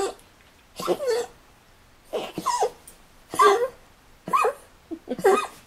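A pet gives five short, high-pitched cries, each rising and then falling in pitch, spaced about a second apart.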